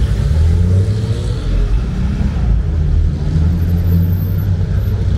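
A car engine running with a steady low rumble, its pitch shifting slightly.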